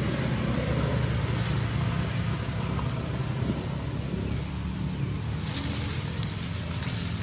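Steady low rumble, with a brief rustle of dry leaf litter about five and a half seconds in as a macaque shifts its weight.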